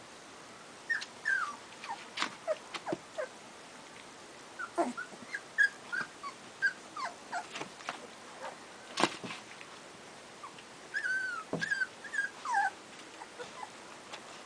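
Puppies whimpering and squeaking: many short, high-pitched calls, mostly falling in pitch, coming in irregular clusters, with a few sharp clicks mixed in.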